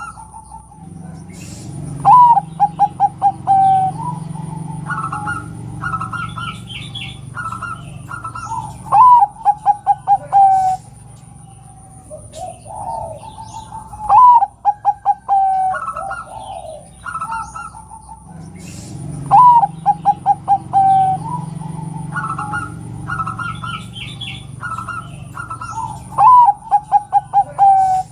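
Zebra dove (perkutut) cooing five times. Each call opens on a rising note, breaks into a quick staccato run of short coos and ends on a held note. It is presented as a female calling to draw a male to sing. Small bird chirps go on between the calls.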